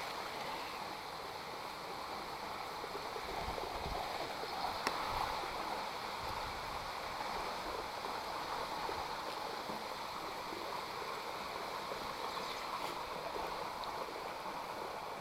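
Creek water running steadily, a constant even rush.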